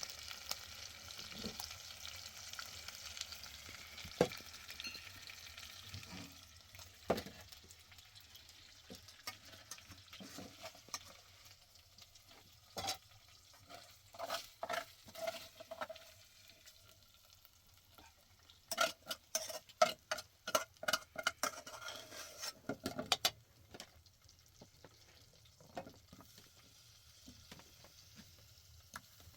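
Food frying in a pan while it is stirred: a soft sizzle over the first few seconds, then a long run of sharp knocks and scrapes of the utensil against the pan, thickest from about 12 to 24 seconds in.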